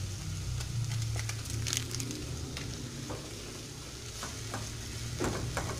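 Sliced onions sizzling gently in a pot as they sweat toward a glaze, while a utensil stirs them, with several sharp clicks and scrapes of the utensil against the pot and a low steady hum underneath.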